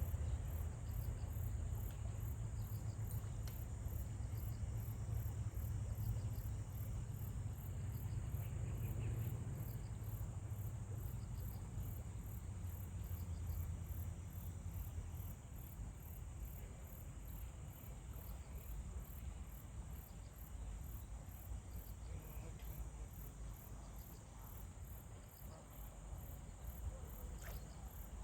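Insects chirping in a high, even pulse, with a fainter second chirping lower in pitch, over a low rumble.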